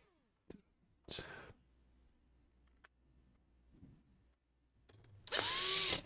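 Handheld electric screwdriver running for about two-thirds of a second near the end with a rising motor whine as it drives a laptop fan screw. A much fainter short burst comes about a second in.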